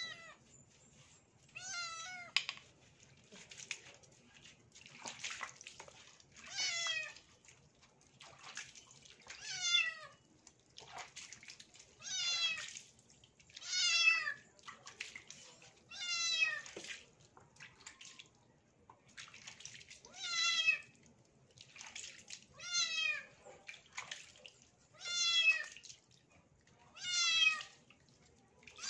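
A wet kitten meowing about a dozen times, one cry every two seconds or so, each call sliding down in pitch: crying in protest at being bathed and scrubbed.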